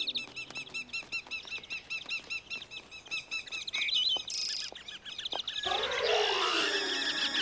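Cartoon sound effect of many birds chirping in quick repeated tweets, followed near the end by a louder, swelling swirl of sweeping pitches.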